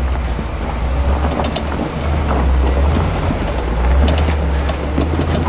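Lifted GMC pickup rock crawler's engine running low and steady under load as it crawls over a rock ledge, with scattered short cracks and crunches from the tires on rock and gravel.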